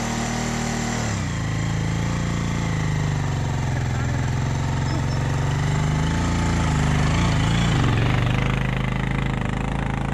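Motorcycle engine labouring up a steep dirt track with two riders aboard, its pitch dropping about a second in and wavering near the end as the throttle changes. It grows louder as the bike nears the crest, then eases off, the bike straining to pull the climb.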